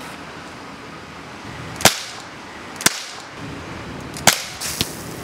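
Non-blowback CO2 air pistol shooting steel BBs: sharp cracks about a second or so apart, with a fainter crack just after the third.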